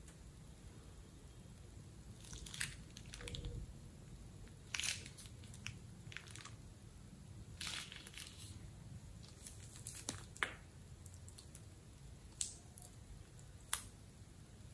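Thin plastic piping bag crinkling and crackling as a hand squeezes it empty and crumples it, in scattered short bursts.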